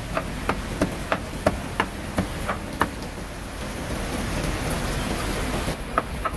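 Cleaver chopping grilled meat on a cutting board in a steady rhythm of about three strokes a second, over a steady hiss. The chopping stops about three seconds in and starts again near the end.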